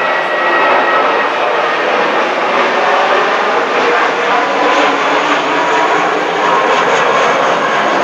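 Airbus A320-family twin-jet airliner climbing out after takeoff, its engines giving a loud, steady roar. A faint high whine fades within the first second.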